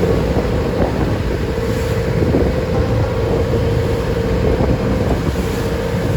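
A wooden passenger boat's engine running steadily, with a constant hum, under wind buffeting the microphone.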